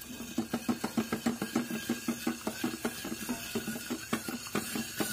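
A metal frying pan with a glass lid being shaken back and forth on a gas stove grate, rattling in quick rhythmic knocks, about five or six a second, over a steady metallic ring. The pan is shaken to loosen the frying sausage from the bottom and roll it over.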